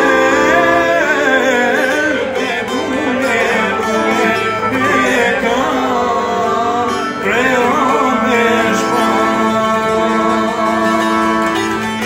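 Men singing a folk song together to plucked long-necked lutes, likely Albanian çifteli and a bowl-backed lute, strumming briskly. The voices drop out about eight seconds in, and the lutes play on alone.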